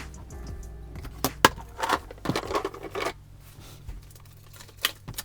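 Paper handling at a desk: crinkling and tearing of paper with several sharp clicks and taps. The longest rustle comes about two to three seconds in.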